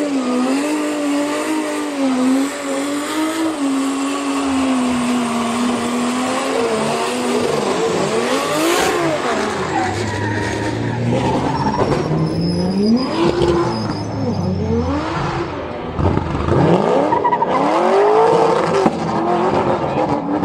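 A drift car's engine revving hard, its pitch wavering up and down with the throttle, over the squeal of sliding tyres. Over the second half the engine note swoops up and down several times as the car goes past.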